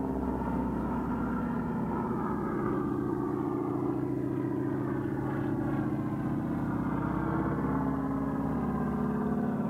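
North American Harvard trainer's Pratt & Whitney R-1340 Wasp radial engine and propeller droning steadily overhead during aerobatics, the pitch drifting slowly.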